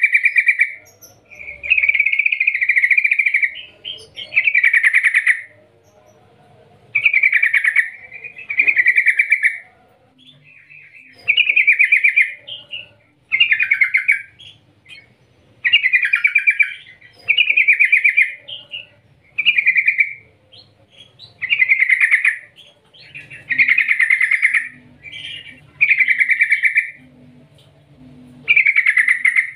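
Yellow-vented bulbul (trucukan) singing: a long series of fast rolling, trilled phrases, each about a second long, repeated every second or two.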